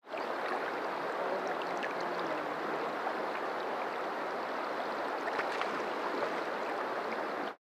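Stream water flowing and rippling right at the microphone: a steady rush with small splashes and drips through it, cutting off suddenly near the end.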